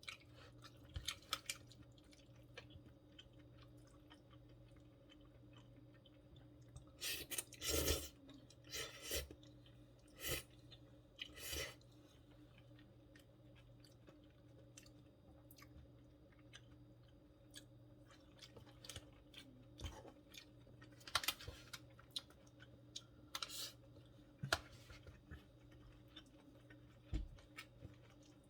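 Close-miked chewing and wet mouth sounds of someone eating stir-fried gopchang with vegetables, coming in two spells with small clicks between, over a faint steady hum.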